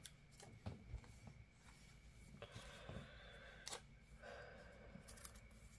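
Near silence: faint paper handling, with soft ticks and two brief rubbing sounds of a sticker being pressed down onto a journal page.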